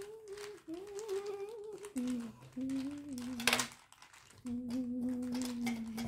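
A child humming long held notes with the mouth closed, dropping to a lower note about two seconds in and breaking off briefly before four seconds. A short, sharp noise cuts in about three and a half seconds in.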